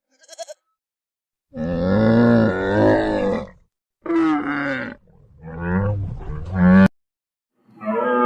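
A large animal's loud, drawn-out calls, three in a row with short pauses between, after a brief bleat at the very start.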